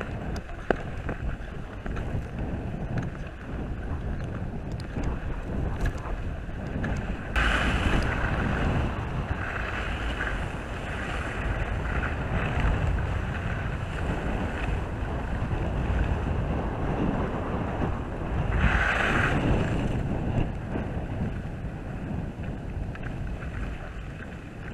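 Wind rushing and buffeting on the microphone of a skier's action camera during a downhill run, with skis hissing over packed, tracked snow. Two louder scraping stretches come about 7 seconds and 19 seconds in, like ski edges biting on hardpack in a turn.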